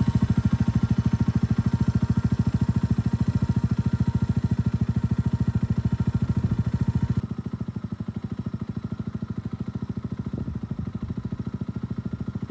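Mutt 125 motorcycle's single-cylinder engine idling with a fast, even pulse. It turns quieter and duller about seven seconds in, then cuts off abruptly.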